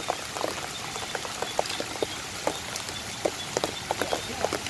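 Rain falling on wet ground and standing water, a steady hiss with many short, irregular drip sounds.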